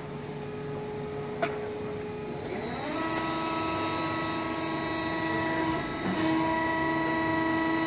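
CNC press brake running, its electric drive giving a steady whine. About two and a half seconds in the whine rises in pitch and gets louder, then holds steady. A single sharp click sounds about a second and a half in.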